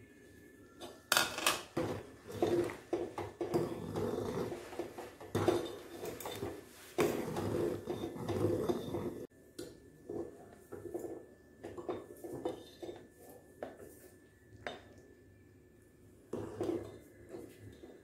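Steel ladle stirring and scraping in an aluminium pot of kadhi, with repeated metal clinks against the rim and sides. The sound is busiest in the first half, drops abruptly about nine seconds in, and turns to sparser clinks after that.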